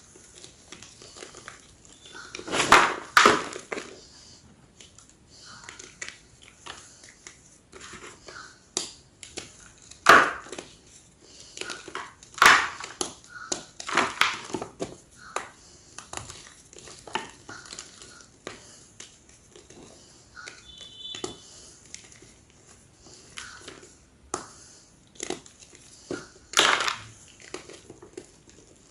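Large slabs of gym chalk being crunched and crushed: a handful of loud, sharp crunches several seconds apart, with softer crumbling crackles between.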